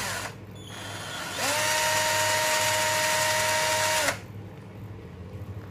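Xenon XN-CDD505 12-volt cordless drill driver spinning its empty chuck in second speed gear: a motor run winds down right at the start, then about a second and a half in the motor whines up to a steady pitch, runs for about two and a half seconds and cuts off about four seconds in.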